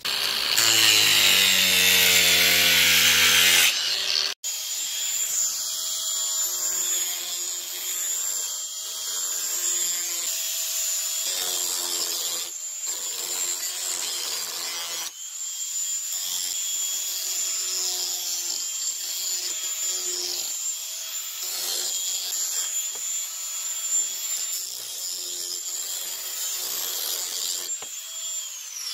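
Cordless angle grinder with a diamond blade running with a steady high whine while it grinds along the edge of a cement siding board, rounding the corner over. The whine falls away as the grinder stops near the end.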